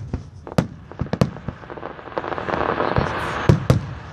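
Aerial fireworks shells bursting overhead: a run of sharp bangs, two in quick succession about three and a half seconds in, with a steady rush of noise between them in the middle.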